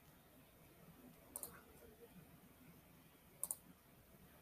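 Two sharp double clicks, the first about a second and a half in and the second about two seconds later, over near-silent room tone.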